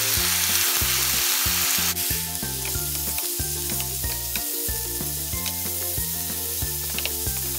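Chicken pieces sizzling in hot oil in a nonstick frying pan, stirred and turned with a wooden spatula, with a few light taps. The sizzle gets quieter about two seconds in. Low background music plays underneath.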